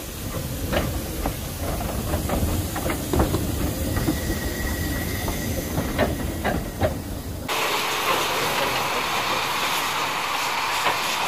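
Steam train running on the rails: a low rumble with irregular clicks of wheels over rail joints. About seven and a half seconds in it cuts abruptly to a loud, steady hiss of escaping steam from a steam locomotive.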